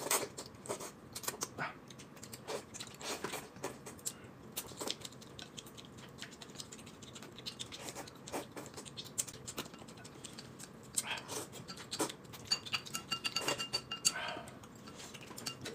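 Two people eating hot-and-sour noodle soup: irregular slurps, with chopsticks clicking against porcelain bowls. The sound is quiet, made up of many small, uneven clicks and short slurping rushes.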